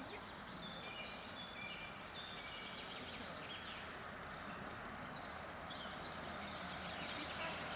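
Quiet outdoor ambience: small birds singing in short, repeated chirping phrases over a steady background hiss.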